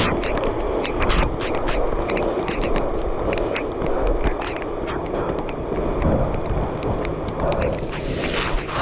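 Heavy rain and wind on a handheld microphone: a steady rushing noise with many small irregular taps.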